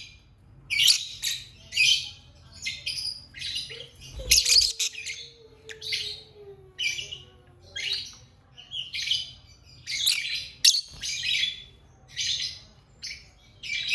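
Lovebird chirping: a run of short, high-pitched, harsh chirps, about two a second.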